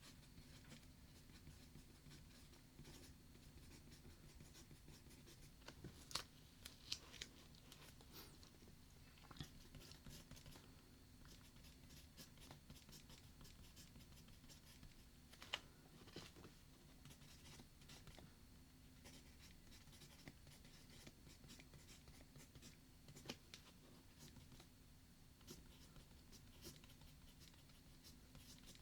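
Faint writing on paper, with scattered light scratches and clicks and a few sharper ticks, over a low steady hum.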